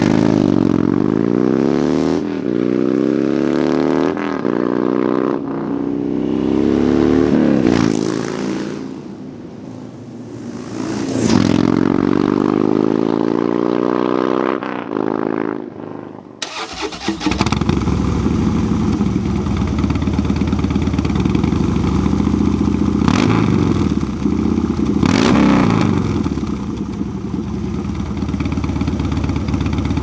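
Harley-Davidson 103-cubic-inch V-twin breathing through a Thunderheader 2-into-1 exhaust, accelerating hard through several gear changes, the pitch climbing and dropping at each shift, then dipping and building again. After a sudden cut about halfway, the engine runs steadily with a couple of sharp throttle blips.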